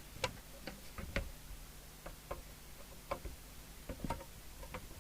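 Irregular sharp clicks and light metallic taps, about a dozen spread unevenly, from a screwdriver and small screws working on the metal case of a Harrier CB radio as it is opened.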